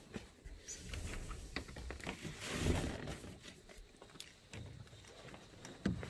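Clicks and knocks from a wooden-framed screen door being handled, with a rasping swell a couple of seconds in, then footsteps on a flagstone path. A sharp knock comes near the end.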